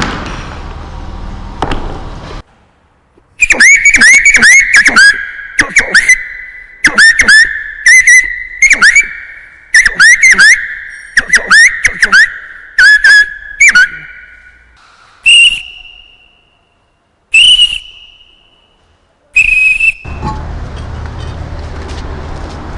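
A man whistling an imitation of nightingale song: a run of loud, quick, swooping and trilling whistled phrases, then three short, higher whistled notes spaced about two seconds apart near the end.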